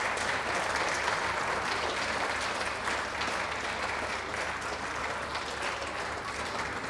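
Audience applauding, a dense steady clapping that eases off slightly toward the end.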